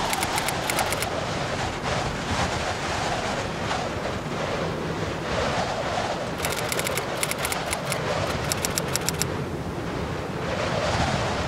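Steady rushing noise like wind or surf, swelling and easing slowly. A rapid, high-pitched crackle of about four clicks a second runs through it at the start and again from about six to nine seconds in.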